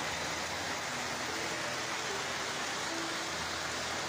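Steady rushing noise of heavy rain and floodwater in a flooded street.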